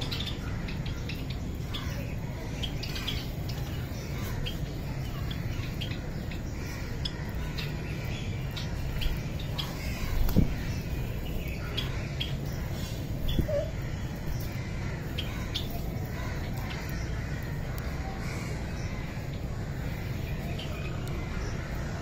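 Java sparrows chirping: short, scattered call notes from a small flock, over a steady low hum. A brief knock sounds about ten seconds in and a smaller one a few seconds later.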